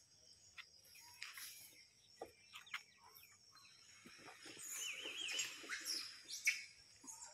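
Wild birds chirping and calling, with a warbling trill about halfway through and calls getting busier and louder in the second half, over a faint steady high-pitched hum.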